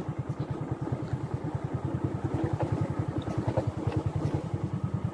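Motorcycle engine running at low revs while riding, with a steady, rapid, even pulse.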